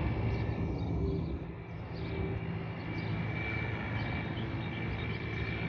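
Steady low rumble of distant road traffic, with faint bird chirps over it.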